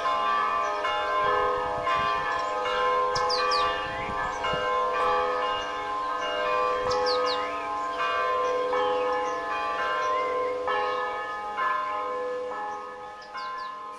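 Orthodox church bells ringing together, several bells struck over and over so their tones overlap and ring on. The peal fades out near the end.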